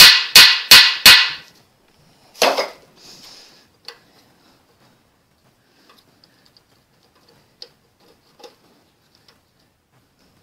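Hammer blows on a seized, broken bolt in a cast-iron Ford flathead V8 block: a quick, even run of four sharp strikes, about three a second, stopping about a second in. A short clatter follows about two and a half seconds in, then a few faint clicks as the bolt is worked by hand.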